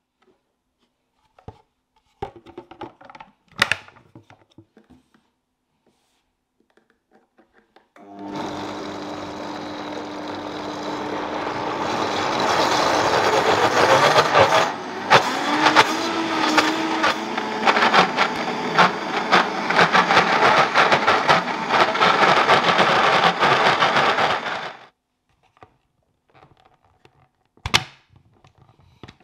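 Vitamix blender running for about sixteen seconds as it purees thick taro into paste. It builds in level over the first few seconds as it speeds up, with frequent knocks through it, and cuts off suddenly. A few clicks and knocks from handling the jar and lid come before it starts.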